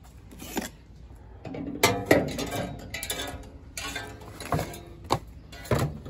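Tool cases and tool bags being handled and set down on a heat pump's metal fan grille: a run of clattering knocks and metal clinks, the loudest about two seconds in, over a faint steady low hum from the unit.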